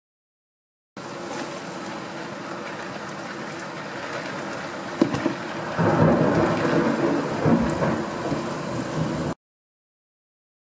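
Heavy thunderstorm downpour hissing steadily. About five seconds in comes a sharp crack of thunder, followed by a loud low thunder rumble that rolls for about three seconds. The sound starts and stops abruptly with silent gaps at the beginning and near the end.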